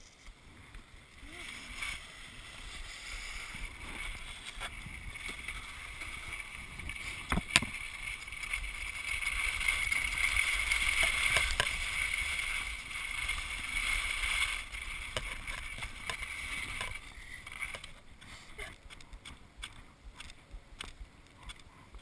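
Snowboard sliding and scraping over packed snow: a hiss that builds over several seconds, is loudest around the middle, then fades, with a sharp knock about seven and a half seconds in.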